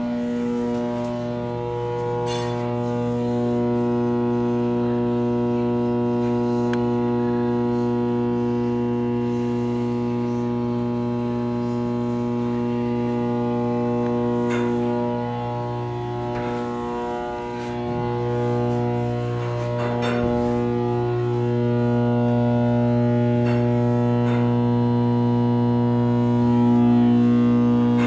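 Engine-room electrical machinery humming steadily: one deep, even tone with a stack of overtones, with a few light clicks along the way.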